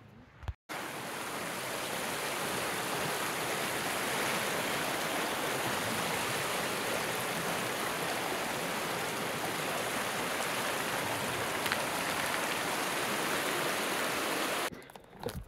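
Small mountain creek running over rocks: a steady rush of flowing water that cuts in suddenly under a second in and stops shortly before the end.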